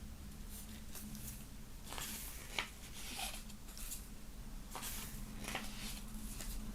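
Unboxing handling of a box set's contents: a series of light, short rustles and taps, with one sharper click about two and a half seconds in, over a steady low hum.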